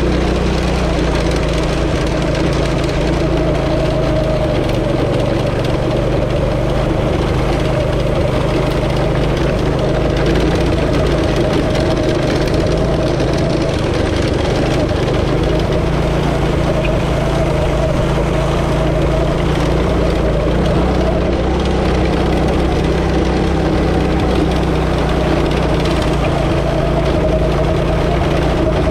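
A go-kart's Predator 212cc single-cylinder four-stroke engine running at a steady high speed, heard from the driver's seat as the kart drives on grass and dirt. The pitch stays nearly constant throughout.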